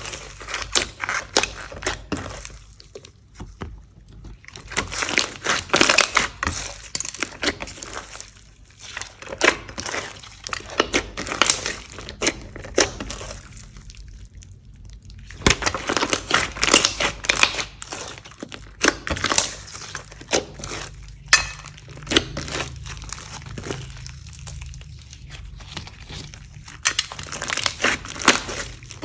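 Hands squishing and kneading slime: wet crackling and popping clicks in bursts of a few seconds, broken by short pauses.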